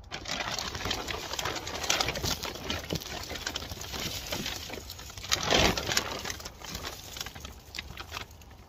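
Foil emergency blanket and plastic tarp crinkling and rustling as a person squeezes in against them, a dense crackly rustle that is loudest a little past halfway.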